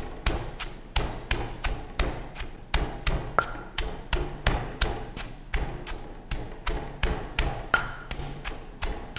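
Wooden pestle pounding shredded green mango in a stone mortar: a steady run of dull thuds at about three strikes a second.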